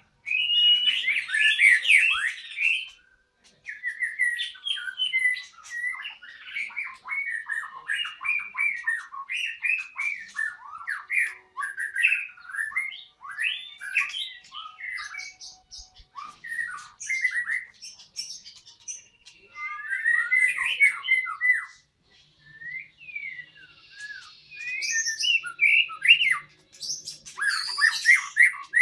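White-rumped shama singing: long runs of rapid, varied whistles and chirps, broken by short pauses about three seconds in and again a little past the twenty-second mark.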